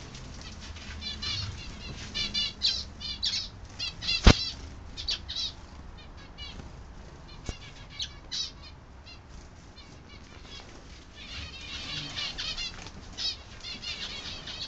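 Small aviary birds chirping and twittering in quick runs, with a sharp click about four seconds in.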